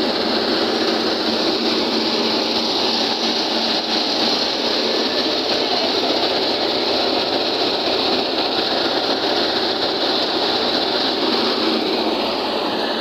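Eicher tractor driving a thresher that is threshing mustard, the engine and threshing drum running at a steady working speed.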